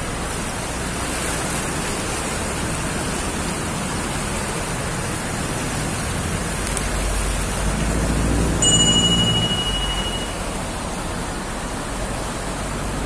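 Steady rushing noise of floodwater and rain around a car driving through a flooded street, heard from inside the car's cabin. A low rumble swells from about seven seconds in to about ten seconds, and a brief high electronic tone sounds about nine seconds in.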